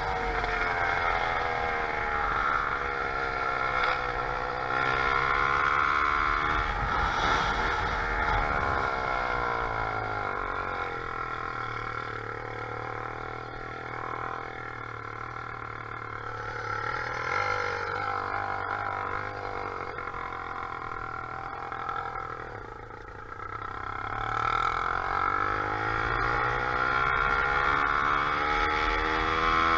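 Motorized bicycle's small engine running while riding, its pitch rising and falling as it speeds up and slows. Near the middle it eases off to a lower, quieter note, then revs back up toward the end.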